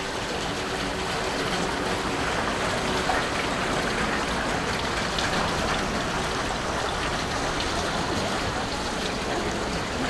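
Steady rushing of the river Mur's flowing water, a dense even hiss.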